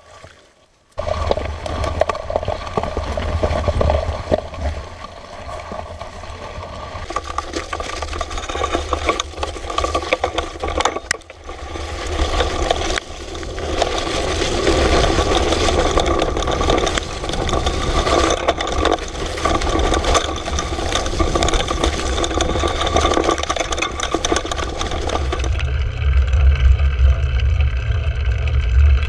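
Ride noise from a camera on a moving mountain bike: wind buffeting the microphone as a heavy low rumble, with the bike rattling over rough ground. It starts abruptly about a second in and changes sharply twice, at around twelve seconds and again near the end.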